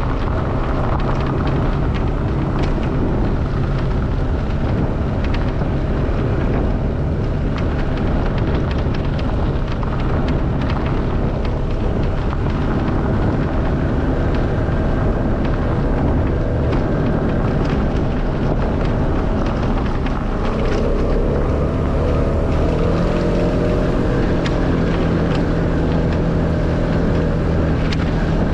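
A motor vehicle's engine running steadily while driving on a gravel track, with tyres crunching on the stones. The engine note rises a little about three quarters of the way through.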